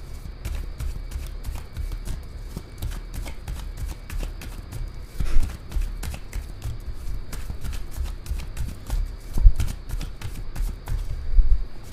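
A deck of tarot cards being shuffled by hand: a steady run of soft, quick card clicks and rustles, with a couple of louder knocks about five and nine seconds in.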